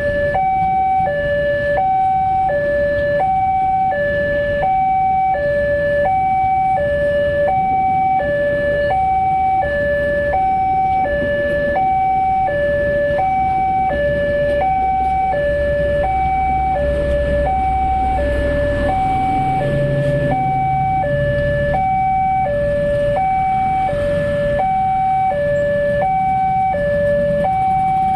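Railway level crossing warning alarm sounding a two-tone electronic 'ding-dong' tone, high and low alternating about once every 1.2 seconds, which cuts off at the end as the crossing clears. A low rumble rises underneath it midway.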